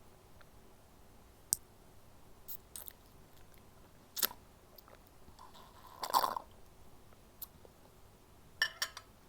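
Close-miked mouth sounds of eating raw apple: separate crisp crunches and chews, about eight in all, with the loudest, longest one a little past the middle and a quick cluster near the end.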